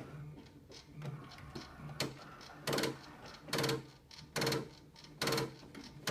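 HP PSC 2210 all-in-one printer making an abnormal repeating mechanical noise at power-on: a short buzzing grind about once a second. The grinds are faint at first and much louder from about three seconds in.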